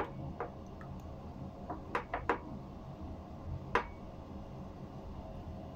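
Silicone spatula stirring a thin mixture in a ceramic bowl, with several light clicks and knocks as it strikes the bowl's side.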